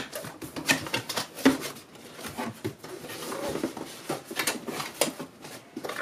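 A cardboard box being opened by hand: flaps and packaging rustling and scraping, with irregular light taps and clicks.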